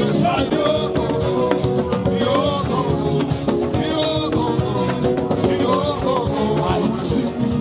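Upbeat gospel praise music, with a steady drum-kit beat under bass and melodic lines.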